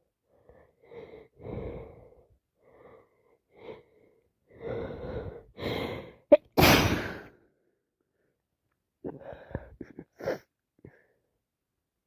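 A person with a heavy cold sneezing: a few catching breaths build up, then one loud sneeze about six and a half seconds in, followed by a few short sniffs near the end.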